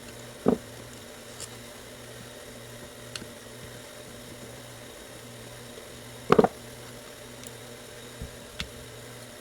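Two short knocks from carburetor parts being handled on a workbench, a small one about half a second in and a louder one about six seconds in, with a few faint ticks between, over a steady low hum.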